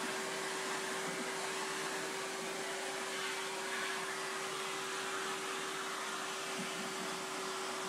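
Vacuum cleaner running steadily: an even rushing noise with one steady hum-tone in it, unchanged throughout.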